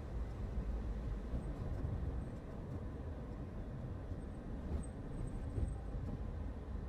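Steady low rumble of a car driving, road and engine noise with no clear engine note.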